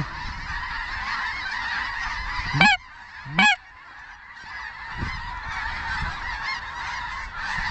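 A large flock of geese calling in a constant, dense chorus, with two loud single honks rising in pitch about two and a half and three and a half seconds in.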